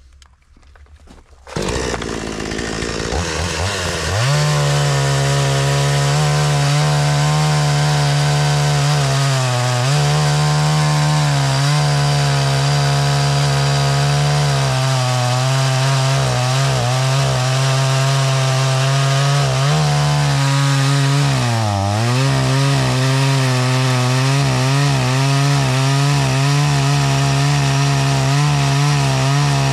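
Older-model Parkside two-stroke petrol chainsaw, air-cooled, cutting through a thick log. It comes in suddenly about a second and a half in and revs up over a couple of seconds. It then runs at high, steady revs, and its pitch sags briefly several times as the chain loads up in the wood.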